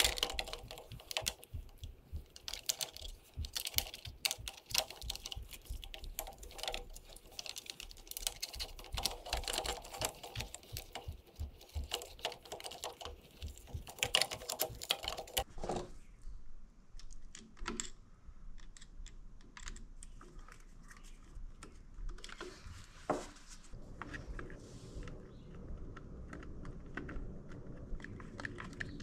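Dense run of small clicks and taps from hard plastic parts of a Honda Motocompacto's headlight housing being handled and pressed into place. About halfway through it thins out to sparse, quieter clicks and knocks.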